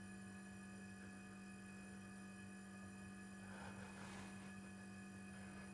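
Near silence: faint room tone with a steady low hum, and a brief faint hiss of noise about three and a half seconds in.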